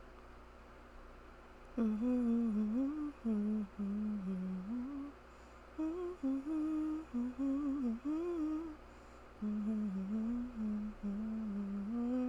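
A woman humming a tune to herself in several short melodic phrases, beginning about two seconds in.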